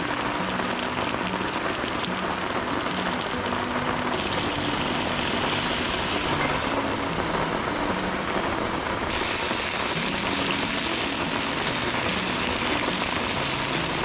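Heavy rain falling steadily on the tent and tarp: an even, dense hiss, with faint background music of short low notes underneath.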